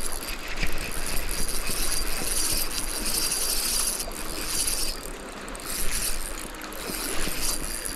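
Spinning reel being cranked fast to wind in a hooked trout, its gears and bail giving a rapid fine clicking whir, over the rush of river current.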